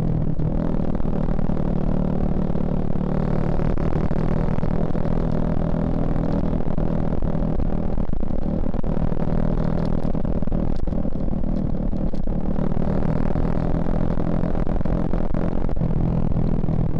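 Suzuki Shogun Axelo R's single-cylinder four-stroke engine running at a steady speed, with some added rushing hiss from about three to six seconds in.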